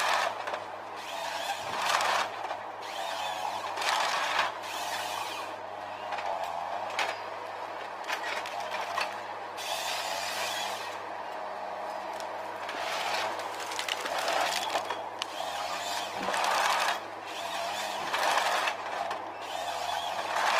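Eco Log forestry harvester's diesel engine running steadily, dipping slightly under load. Over it come repeated swells of hydraulic and cutting noise every couple of seconds as the harvester head grips and processes the trees.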